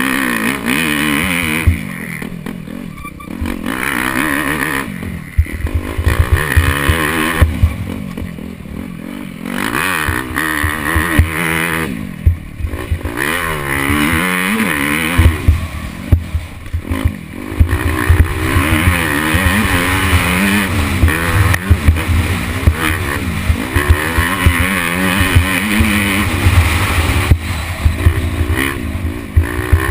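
Dirt bike engine revving hard, its pitch climbing again and again through the gears, with the throttle shut off every few seconds, heard from on board. Knocks and rattles from the bike over the rough track are mixed in.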